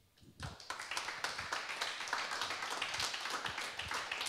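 Audience applauding, starting about half a second in as many quick, overlapping hand claps.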